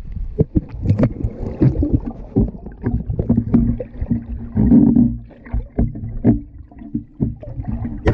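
Muffled underwater water movement: a low rumble with frequent short knocks and clicks.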